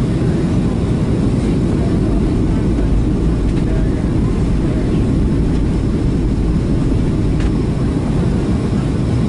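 Steady cabin noise of a Boeing 737-800 in flight: an even, deep rumble of engine and airflow heard from inside the cabin.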